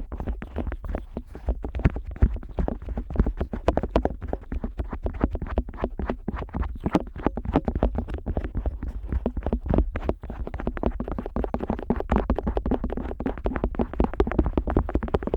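Otoscope tip rubbing and tapping on the rubber ear flap of a Neumann KU100 dummy-head microphone, picked up right at the ear: a dense, uneven run of quick clicks and scratches.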